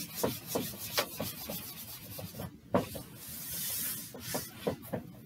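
Handheld whiteboard eraser rubbing across a whiteboard in quick, repeated back-and-forth strokes, with a brief pause about halfway through.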